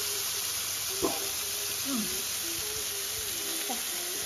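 Pork belly, beef and peppers sizzling on a hot electric grill pan, a steady hiss, with a sharp clink of a utensil about a second in.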